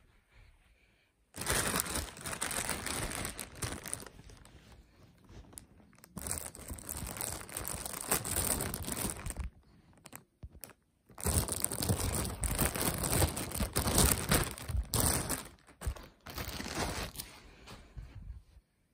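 Clear plastic bag crinkling and rustling as hands handle it, in three long spells with short pauses between.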